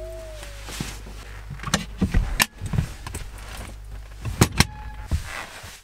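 Handling sounds inside a camper van: a string of small sharp clicks and knocks, bunched around the second and fourth-to-fifth seconds, with soft rustling between them, over a steady low hum.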